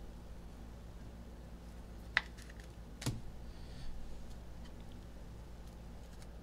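Trading cards being handled by hand: a sharp click about two seconds in and a duller tap a second later as cards are set down, then a brief soft rustle.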